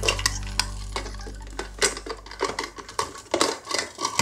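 Small plastic toy police car pushed and rolled into a plastic toy car-wash playset: an irregular run of light clicks, rattles and knocks of plastic on plastic. Background music fades out over the first two seconds or so.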